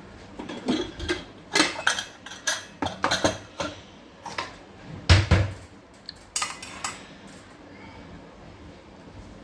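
Kitchen pots and utensils clattering and clinking against each other in a quick, irregular run of knocks, with one heavier clunk about five seconds in. The clatter stops about seven seconds in.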